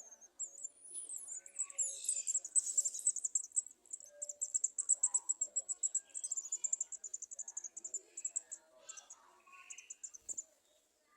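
Garden sunbirds (olive-backed sunbirds) calling at the nest: a high-pitched, fast chittering trill that opens with a few sliding notes, runs on for about ten seconds and breaks up near the end.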